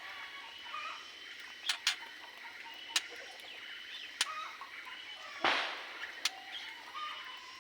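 Aviary birds chirping and calling, mixed with several sharp clicks and a brief rushing burst about five and a half seconds in.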